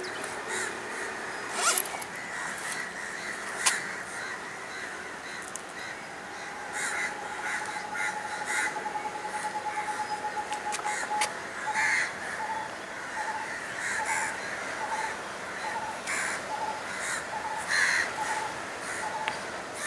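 Crows cawing repeatedly. Behind them a faint steady high tone turns, about halfway through, into short regular beeps at about one and a half a second, with a few sharp clicks early on.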